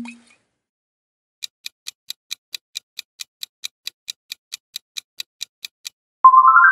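Quiz countdown timer sound effect: about twenty sharp clock ticks, roughly four and a half a second, as the answer timer runs. A low thump dies away at the very start, and a loud run of notes rising in quick steps comes in near the end.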